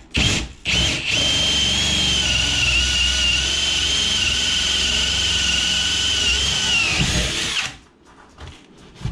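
Cordless drill spinning a hole saw through the wood of a house wall, with a steady high whine. A couple of short bursts are followed by one long run of about seven seconds that slows slightly and then stops abruptly.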